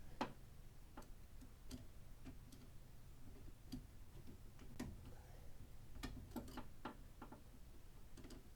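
Faint, irregular light clicks and taps, about a dozen, from small parts and tools being handled during assembly, over a low steady hum.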